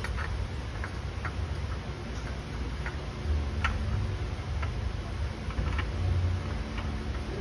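Scattered, irregular light clicks and taps of a gloved hand working against metal under the truck while twisting a new oil filter onto the engine by hand. A low rumble runs underneath and swells twice.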